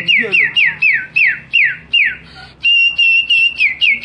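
A boy whistling an imitation of a songbird's song: a run of quick falling whistled notes, two to three a second, a short break a little past halfway, then a high note held for about a second before the falling notes start again.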